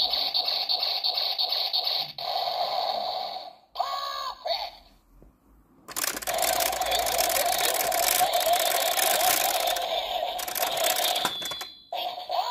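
Geardalinger toy gun's built-in speaker playing Katana Gear sound effects. A pulsing standby loop runs for the first few seconds. A short rising-and-falling chime comes about four seconds in. From about six seconds a long noisy finishing-attack effect plays and cuts off suddenly near the end.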